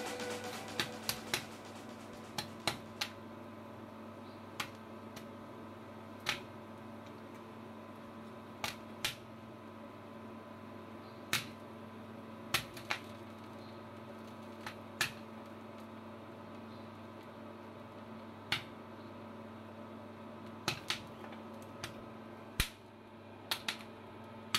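The last popcorn kernels popping one at a time in a hot pan of finished popcorn: sharp single pops at irregular intervals, often a second or more apart, over a steady low hum.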